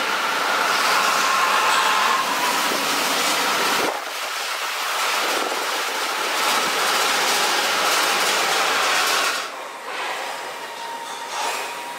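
Sapporo subway rubber-tyred train running on its guideway: a steady rushing noise with a faint whine over the first couple of seconds, dropping in level near the end.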